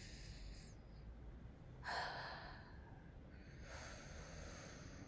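A woman breathing close to the microphone: a soft breath at the start, a sharper breath about two seconds in, and a longer, slow exhale near the end.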